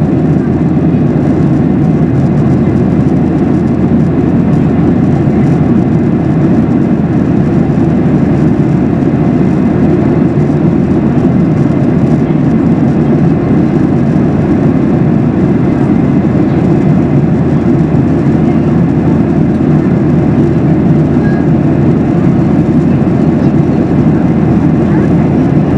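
Steady cabin noise of a Boeing 737-800 in flight, heard from a passenger seat: a loud, even, deep rush of airflow and CFM56 jet engines.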